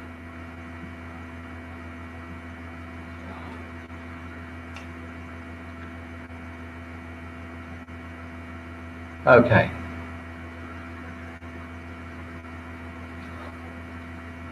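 Steady electrical hum on the recording line, a low hum with a few fainter higher tones held unchanged. A single spoken "okay" about nine seconds in.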